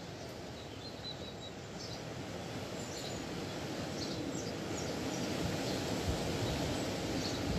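Wind rushing over the phone's microphone, a steady noise that grows louder and gustier toward the end, with a few faint bird chirps.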